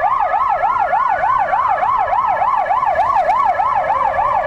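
Emergency vehicle siren warbling rapidly, about three sweeps up and down each second, with a second steadier tone sliding slowly up and back down behind it.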